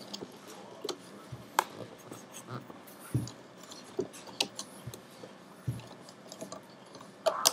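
Scattered light clicks and taps of a loom hook working rubber bands on a plastic loom, coming irregularly several times.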